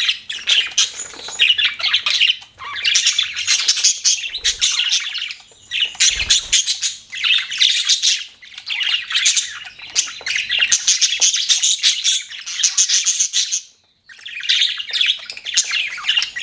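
Budgerigars chirping in rapid, dense high-pitched chatter, with a brief pause about fourteen seconds in.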